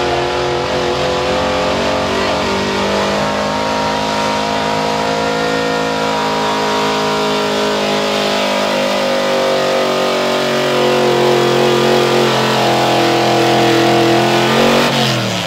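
Chevrolet pickup's small-block V8 running flat out under load, pulling a weight-transfer sled, at a steady high pitch that grows a little louder in the second half. Just before the end the revs fall off sharply as the throttle comes off.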